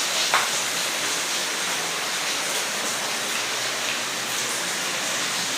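Heavy rain pouring steadily, with water running off the houses, and one brief knock near the start.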